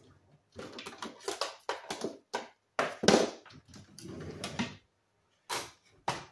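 Kitchen handling noises: irregular rustling and clattering with a few sharp knocks, the loudest about three seconds in.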